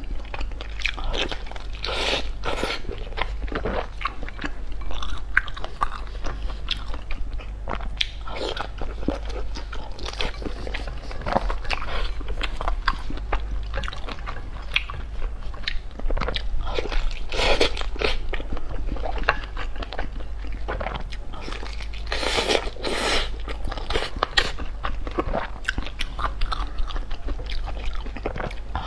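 Close-miked biting and chewing of a soft vegetable sausage with a translucent casing, filled with glass noodles and mixed vegetables. It makes irregular wet clicks and light crunches, over a steady low hum.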